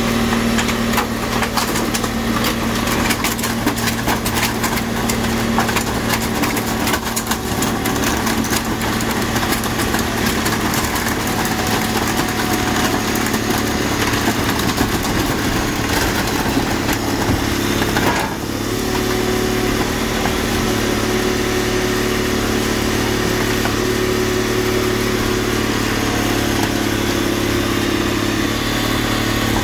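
A car crusher's engine runs steadily, driving the hydraulic press as the lid bears down on half of a 1967 Chevy C10 pickup stacked on a sedan. For the first several seconds the bodies crackle and crunch as they give way. About 18 s in the engine note dips briefly, then settles into a slightly different steady note under load.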